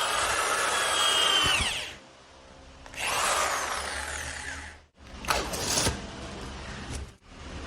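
Electric motor of a JLD 3301 two-in-one polisher/drill running, then winding down in pitch about two seconds in and starting up again about a second later.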